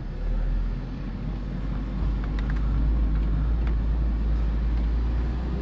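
Steady low road and engine rumble inside the cabin of a moving 2002 Ford Focus, with a few faint ticks in the middle. There is no unusual noise from its freshly replaced front brakes.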